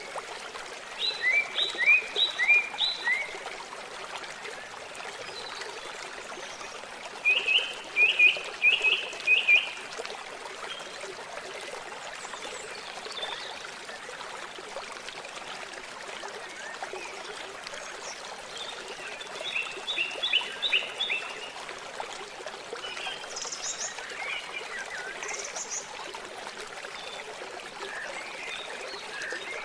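Water running steadily, with several bursts of rapid, repeated high chirping calls from wildlife.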